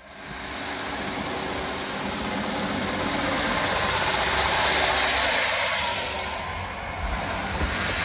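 Class 156 diesel multiple unit passing close by along the platform: its underfloor Cummins diesel engines run with a steady drone and a high whine over the rumble of the wheels. A few thumps come near the end.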